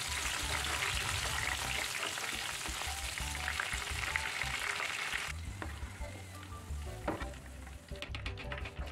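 Red bird's-eye and curly red chilies sizzling as they fry in hot oil, stirred with a spatula. The sizzle drops abruptly a little past halfway to a quieter crackle, with a single knock near the end.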